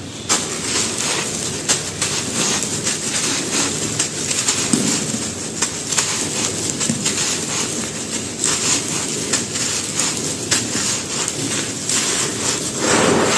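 Dry mud brick being crumbled and crushed: a continuous gritty crackle of many small snaps and crunches, growing louder near the end.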